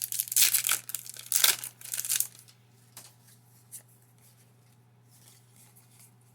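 Foil wrapper of a Pokémon TCG booster pack torn open and crinkled for about two seconds, then a few faint ticks of the cards being handled. A steady low hum runs underneath.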